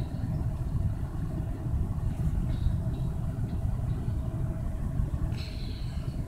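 Freight train of gondola cars rolling past, a steady low rumble of steel wheels on the rails, with a brief higher-pitched squeal near the end.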